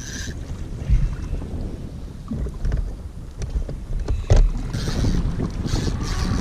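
Wind buffeting the microphone with choppy water around an inflatable boat, broken by two sharp thumps, one about a second in and a louder one just past four seconds.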